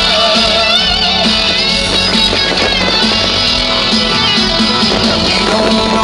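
Country-rock song playing, in an instrumental stretch between sung lines, with electric guitar carrying the melody.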